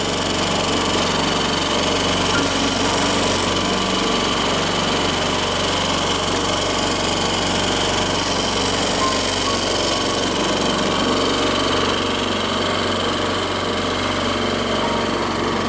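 Small Mariner outboard motor running steadily at one speed, driving the boat along.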